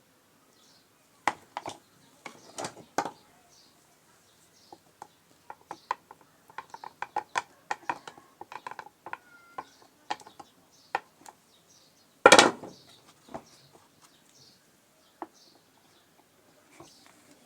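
Irregular clicks, taps and clanks from hand tools and parts being handled during washing machine repair work on the pulsator assembly, with one louder knock about twelve seconds in. Birds chirp faintly in the background.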